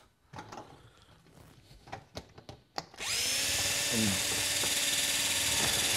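Power drill driving a self-tapping screw into a metal skylight tube to fasten two sections together. It starts suddenly about halfway through, after a few faint handling clicks, and runs steadily at one pitch.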